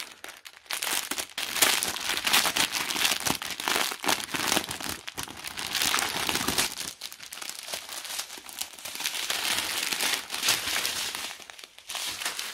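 Thin clear plastic bags crinkling as a strip of diamond-painting drill packets is handled and taken out of its packaging, on and off with short pauses.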